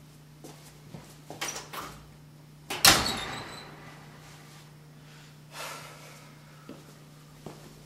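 A few light knocks, then about three seconds in a door or cupboard in a kitchen bangs shut once, loud, with a ringing decay. A short scrape and a couple of faint clicks follow later.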